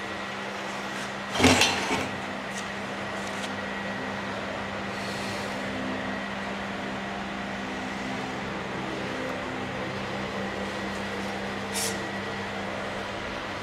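Steady low mechanical hum with a faint high whine. A sharp knock comes about a second and a half in, the loudest sound, and a softer knock near the end.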